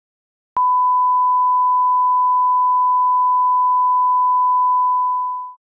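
Steady line-up test tone, a single pure beep played with colour bars at the head of the video. It starts abruptly about half a second in, holds level and dies away quickly near the end.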